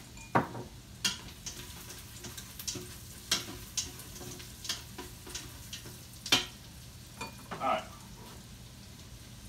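A utensil stirring onions and garlic sautéing in an Instant Pot's stainless steel inner pot: irregular sharp clinks and scrapes against the pot over a faint sizzle.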